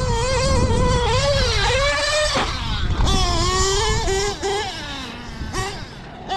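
Novarossi .28 nitro engine of a 1/8-scale Losi 8ight XT truggy, revving up and down with a high-pitched whine as the truck is driven. It eases off and falls to a low note about five seconds in, then picks up again.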